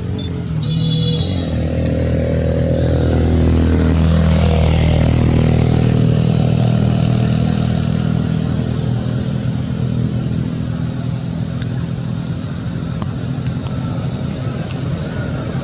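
A motor vehicle's engine passing close by, getting louder for a few seconds and then fading, over steady background noise. There is a brief high-pitched sound about a second in.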